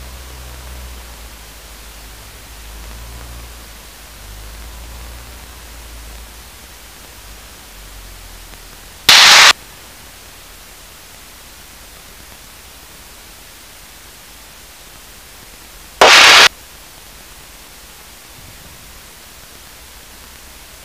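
Steady static hiss of a light aircraft's headset intercom feed, with a faint low rumble for the first several seconds. Twice, about seven seconds apart, a short loud burst of static cuts in.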